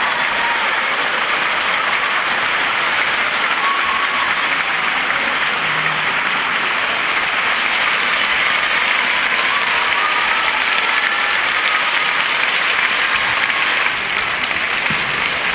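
Large theatre audience applauding steadily, the sound dipping slightly near the end.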